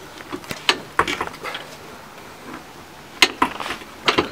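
A long-handled wrench being worked on a fitting under a car, giving a few scattered sharp metallic clicks and knocks, the loudest about three seconds in and again just before the end.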